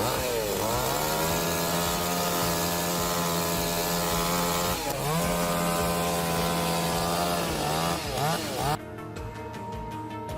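Chainsaw engine running at high revs, its pitch dropping and climbing back as the throttle is eased and opened again, near the start, about halfway and near the end. Shortly before the end the saw cuts off suddenly, leaving background music with a steady beat.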